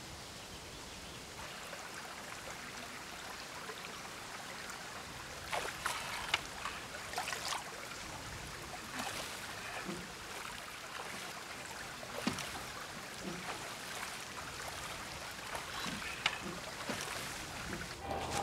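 Water splashing and trickling in irregular small splashes over a steady hiss, as feet skim a still loch's surface.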